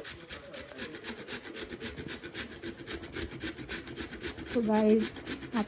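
Carrots being grated on a stainless-steel box grater over a steel bowl: quick, even rasping strokes, several a second.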